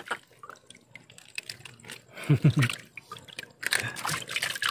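Hands splashing and scooping in shallow water, with drips and trickles as water runs off the handful being lifted and rinsed; the splashing grows busier near the end.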